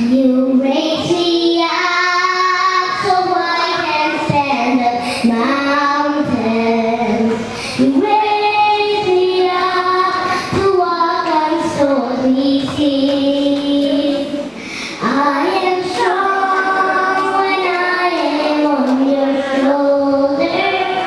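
A young girl singing solo into a microphone, holding long sung notes in three phrases with short breaks about a third and two thirds of the way through.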